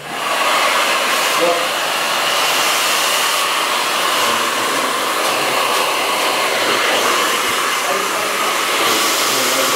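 Hand-held hair dryer switching on and then blowing steadily, heating sections of hair lifted on a vent brush to set a curl.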